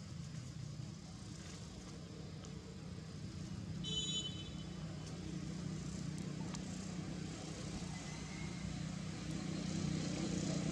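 Steady low rumble of distant road traffic, with one short high chirp about four seconds in.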